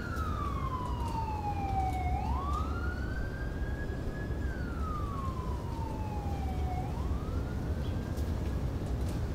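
Emergency vehicle siren wailing: a slow fall in pitch and a quicker rise, twice, fading out near the end, over a steady low rumble.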